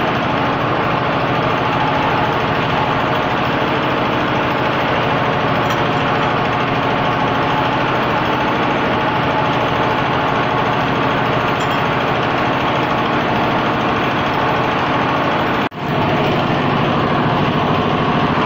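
An engine running steadily at idle, a constant loud drone with a fast, even pulse, which cuts out for a moment about three-quarters of the way through.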